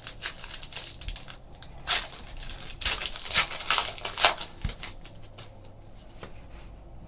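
Trading cards and their packaging being handled: crinkling, rustling bursts as wrapper or sleeve material is worked, loudest in the middle of the stretch.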